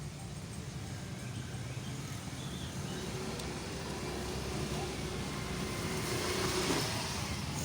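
Road traffic rumbling steadily, with one vehicle passing close and growing louder, loudest about six and a half seconds in.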